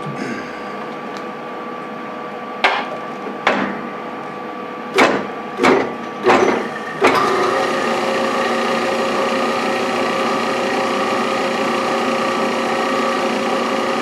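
A handful of sharp metal clunks over about four seconds. Then the lathe's motor and V-belt drive start up and run steadily, turning on a newly machined motor pulley.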